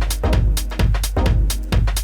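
Background electronic music with a steady drum beat and heavy bass.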